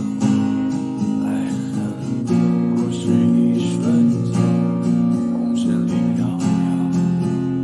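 Acoustic guitar strumming a chord accompaniment in a steady rhythm.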